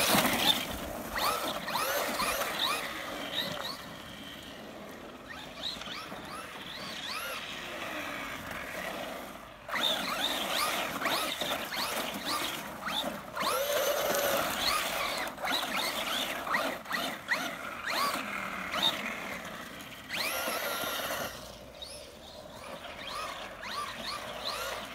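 Traxxas Rustler 4x4 VXL radio-controlled truck's brushless electric motor whining, rising and falling again and again with the throttle, over the hiss of its tyres spinning and sliding on snow and ice. It is fainter for a few seconds early on and again around the twenty-second mark.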